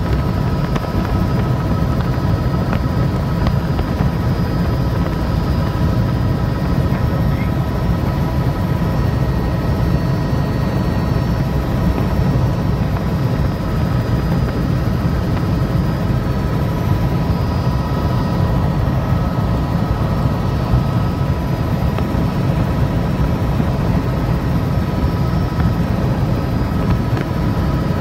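Helicopter in flight heard from on board: a steady, loud rotor and engine drone with a thin high whine held over it.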